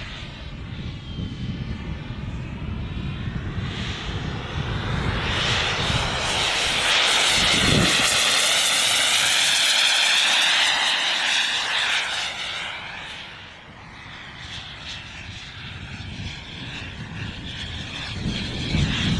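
JetCat P20SX miniature kerosene turbine in a foam MB-339 model jet whining in flight. It grows louder to a peak as the jet makes a close pass about eight seconds in, fades away, then builds again near the end.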